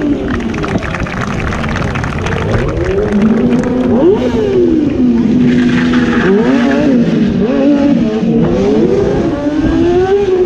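Stunt sport motorcycle's engine revving up and down over and over, held at steady revs for several seconds in the middle, with a hiss of tyre scrub about six seconds in as the bike turns close by.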